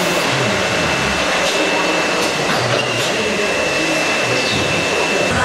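Potting-soil conveyor belts and their electric drive motors running: a steady mechanical din with a thin, steady high whine.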